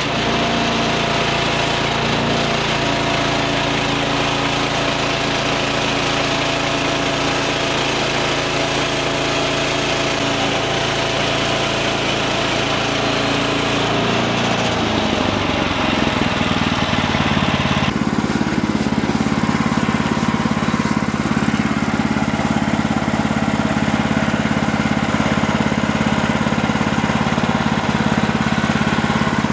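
Portable bandsaw sawmill running, its engine going steadily while the band blade saws incense cedar into boards. About 18 s in the sound changes abruptly: the high cutting hiss drops away while the engine keeps running.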